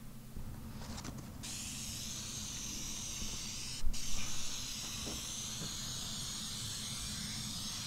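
Aerosol can of 3M spray adhesive hissing steadily as it sprays adhesive to bond expansion foam. It sputters briefly before the steady spray starts, and about four seconds in it stops for a moment with a knock.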